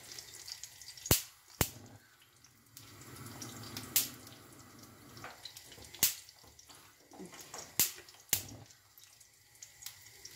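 Food deep-frying in a pot of hot oil: a soft steady sizzle broken by about six sharp pops of spitting oil.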